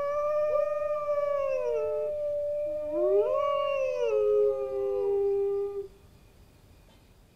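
Two wolves howling together in long, overlapping howls: one holds a steady pitch while the other rises and falls. The howls stop about six seconds in.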